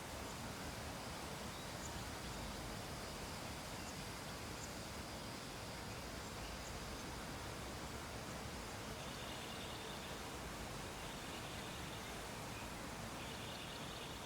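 Steady faint background hiss. Faint high chirps run through it, and in the second half a few short, high buzzes come about every two seconds.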